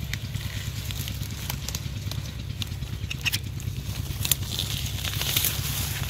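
Turnip and mustard plants rustling, with scattered crackles of leaves and stems, as someone moves through them. The rustle swells to a dense hiss about four to six seconds in, over a steady low rumble.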